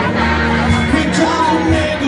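Live rock band playing: distorted electric guitar, bass guitar and drums, with a sung vocal over the top.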